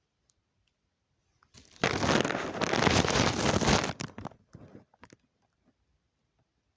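A burst of rough rustling and crunching handling noise, starting about a second and a half in and lasting about two and a half seconds, followed by a few faint clicks.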